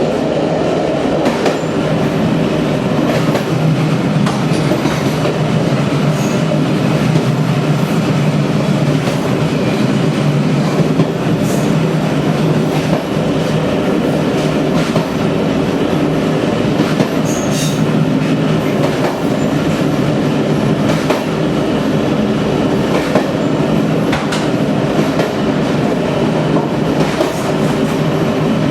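Train running on badly worn track, heard from the rear of the train: a steady loud rumble with frequent clicks and knocks of the wheels over rail joints. A couple of brief high wheel squeals cut through, around a third of the way and a little past halfway.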